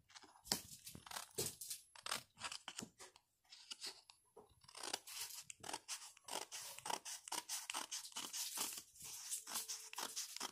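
Small scissors snipping through adhesive photo paper in a long run of quick, crisp cuts, with a short pause about three to four seconds in before the cutting picks up again.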